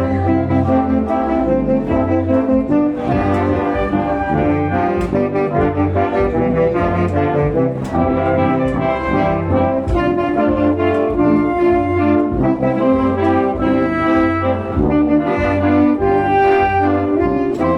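Mexican brass band playing: trumpets, trombones and low brass over a steady beat of drum strikes.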